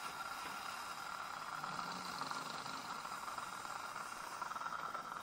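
A steady hiss, strongest in the middle of the range, with a faint fluttering texture.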